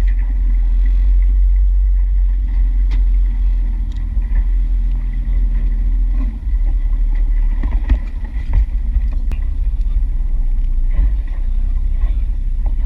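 Steady low rumble of an aluminium fishing boat under way on choppy ocean, its outboard engine running, with a few light knocks.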